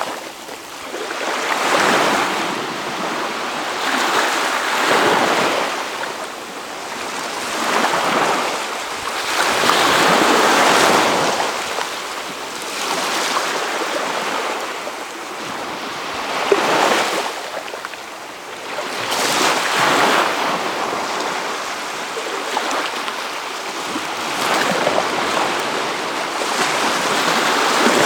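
Gentle Baltic Sea waves breaking and washing up the shore, swelling and ebbing every few seconds, with wind blowing.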